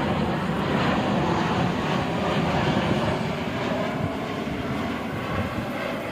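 Jet airliner engine noise, a steady rush that slowly fades.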